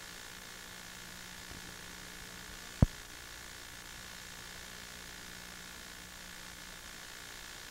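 Steady hiss with a faint low hum and no other sound: the noise floor of a silent home-movie film transfer. A single sharp click stands out about three seconds in.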